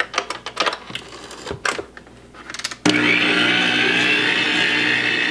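Electric tilt-head stand mixer: a few clicks and knocks as its head is lowered and set, then about three seconds in the motor switches on and runs steadily with a high whine, mixing ground turkey, onion and tomato sauce in a steel bowl.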